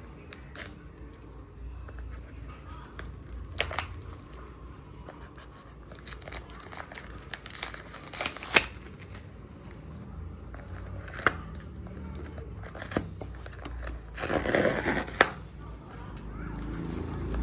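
Hands handling unboxing packaging: scattered sharp clicks and taps, light rustling, and a short tearing noise about fourteen seconds in.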